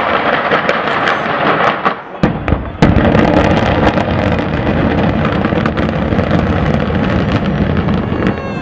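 Controlled explosive demolition of a 17-storey apartment tower: a string of sharp charge blasts and cracks, then from about three seconds in the long, loud rumble of the building collapsing.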